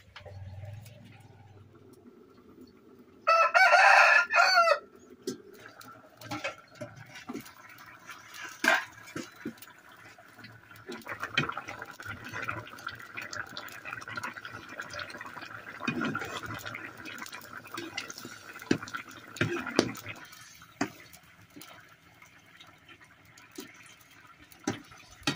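A rooster crows once, loudly, about three seconds in. After it come scattered light clicks and knocks of a spatula working a wok of simmering curry over a wood fire.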